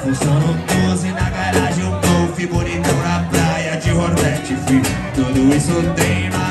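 Live acoustic band playing a song: cajón keeping a steady beat, electric bass and strummed acoustic guitar, with a man singing over them.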